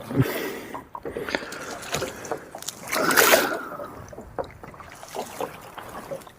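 Water splashing and sloshing against a small boat as a pike is brought into the landing net, with scattered knocks and clicks and a louder splash about three seconds in.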